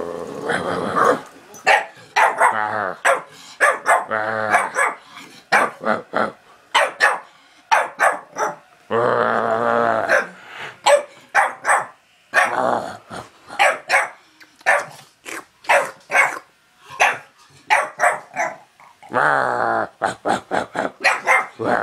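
Staffordshire Bull Terrier puppy barking in play: a long run of short, sharp barks, several a second at times, broken by longer growls near the start, about nine seconds in and again about nineteen seconds in.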